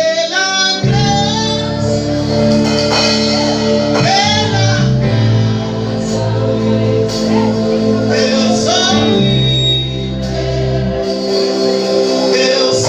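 Music: a song with a singing voice over held chords and a bass line.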